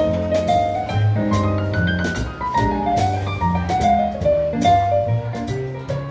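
Live jazzy music played on a digital keyboard with a piano sound, a moving melody of quick notes over a bass line, with drums keeping time.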